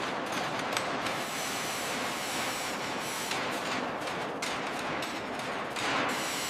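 A steady hiss of rushing noise, even and unbroken, with a few faint ticks in it.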